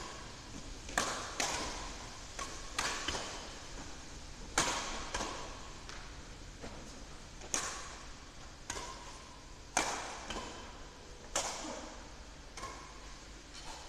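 Badminton rackets smacking a shuttlecock back and forth in a rally: about a dozen sharp strikes at irregular intervals, each ringing on in the echo of a large indoor hall.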